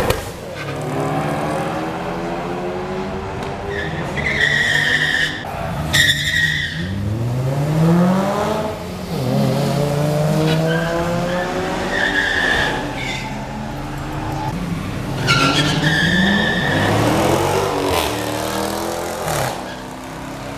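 Street cars accelerating hard down a drag strip in pairs, engines revving and climbing in pitch through several gear changes. Short high-pitched squeals come in several times.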